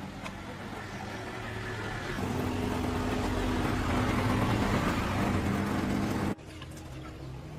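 Repaired large-engined motorcycle running. About two seconds in it rises to a louder, higher steady speed, and about six seconds in it drops back suddenly.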